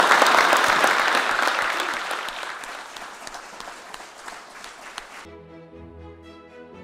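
Audience applause, loud at first and slowly fading, cut off suddenly about five seconds in by instrumental music.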